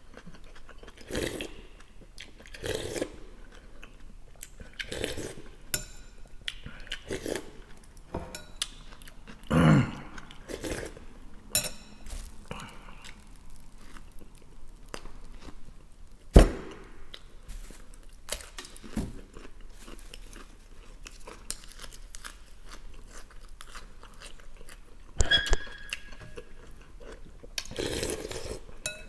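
A person eating close to the microphone: chewing and smacking mouthfuls of borscht and bread, with slurps from a spoon. A sharp click comes a little past the middle, and a metal spoon clinks and rings against the glass bowl near the end.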